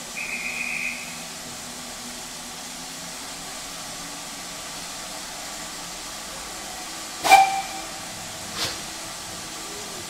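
Steam locomotive standing at a station with a steady hiss of steam. A short high whistle sounds in the first second. About seven seconds in there is a loud metallic bang with a brief ring, and a lighter knock follows a second later.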